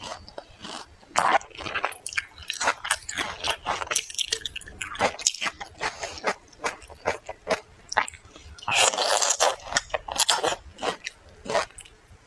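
Close-miked biting and chewing of frozen pear, a run of crisp, short crunches one after another, with a longer, denser burst about nine seconds in.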